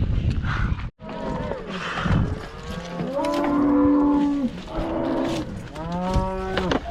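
Cattle bawling: several long, overlapping moos at different pitches, following a low rumble that cuts off abruptly about a second in.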